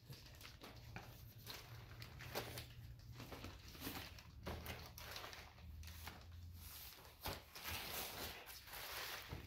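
Faint, irregular rustling and light clicks of parts and their packaging being handled, over a low steady hum.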